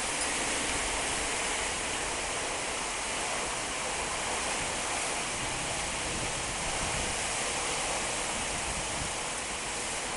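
Heavy wind-driven rain in a violent storm: a steady, dense rush of rain and wind with no let-up.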